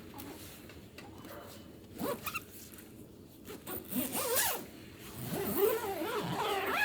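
A zipper being pulled in a few strokes, with a short one about four seconds in and a longer, louder one near the end.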